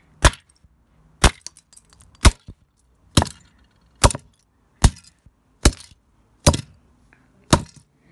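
A concrete block slammed down again and again onto a small plastic toy train engine on concrete paving: nine hard hits about one a second, with broken plastic pieces clattering after some of them.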